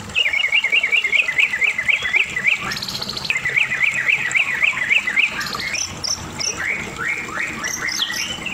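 White-rumped shama singing: a fast run of repeated chirping notes, about five or six a second, given twice, then varied shorter whistled phrases.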